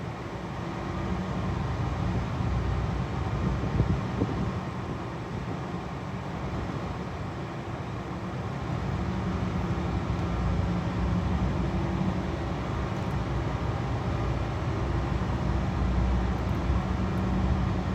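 Machinery of a fuel-oil purification plant running steadily: an even rushing drone with a low hum under it.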